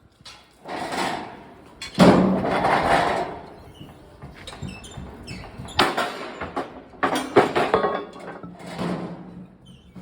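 Pneumatic forging air hammer striking hot metal in irregular heavy blows, each with a long ringing decay; the loudest blow comes about two seconds in.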